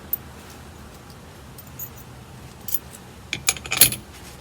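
Metal seatbelt mounting hardware (bolt, hanger and retractor bracket) clicking and clinking as it is handled and fitted together, a quick cluster of sharp clicks in the last second or so.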